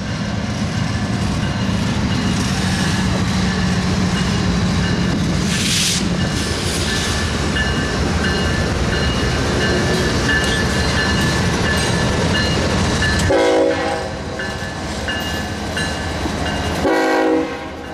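Two BNSF diesel locomotives rolling past, their engines rumbling, leading a freight train. The train horn sounds two short blasts near the end, a few seconds apart.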